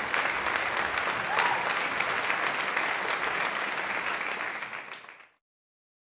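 Crowd applauding. The applause fades away about five seconds in and cuts to silence.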